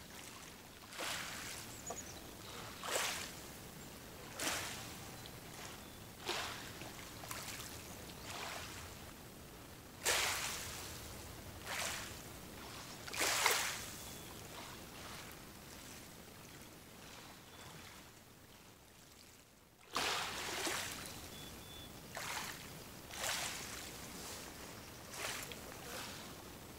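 Small waves lapping at the lake's edge: a run of soft splashing washes, each rising suddenly and fading away, one every second or two.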